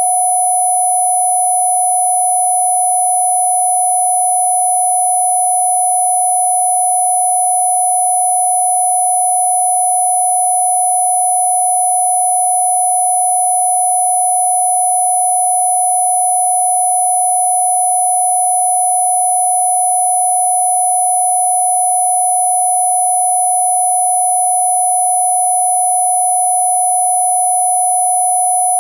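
Electronically generated steady sine tone, a single mid-pitched pure tone with fainter high-pitched tones above it, holding without any break or change in pitch or loudness: a 'Rife' healing-frequency track meant for cough relief.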